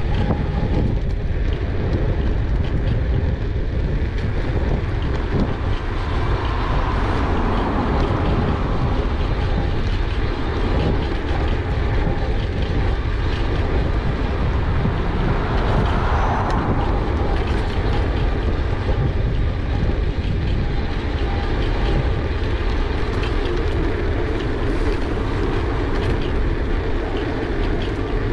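Riding noise picked up by a bike-mounted GoPro: a steady wind rumble on the microphone, with tyre noise and the bike rattling and clicking over the road surface.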